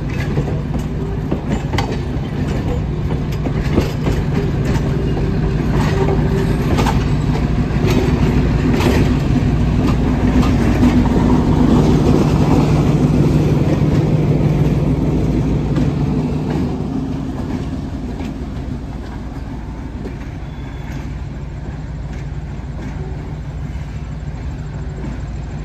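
Passenger coaches rolling past close by, their wheels clicking over the rail joints. A trailing diesel switcher locomotive then passes with its engine running steadily; the sound is loudest about halfway through and eases off after that.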